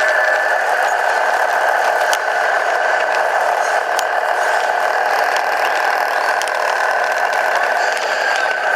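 Tamiya Scania radio-controlled model truck driving, heard from a microphone mounted on the truck: a steady mechanical drone with rattling and a few sharp ticks.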